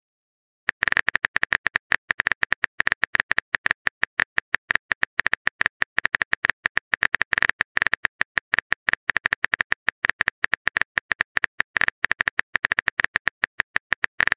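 Phone keyboard typing sound effect: a fast, uneven stream of short tapping clicks, beginning about a second in, as a long message is being typed.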